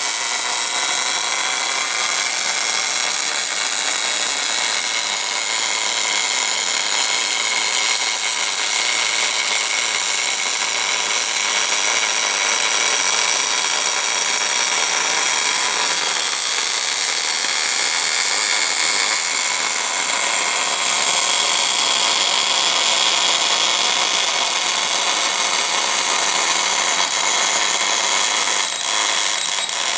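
Wire-fed (MIG/MAG) welding arc of an orbital bore welder running steadily as it lays weld into a cast-iron bore, a loud even hiss and crackle.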